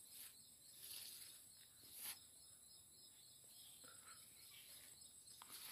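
Near silence: faint rural outdoor background with a few soft rustles.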